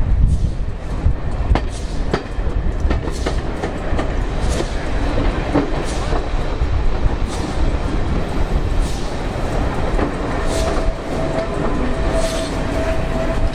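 Railway carriage running along the track, heard from on board: a steady low rumble with irregular clicks and clacks of the wheels over rail joints. A faint steady whine sounds over it for the last few seconds.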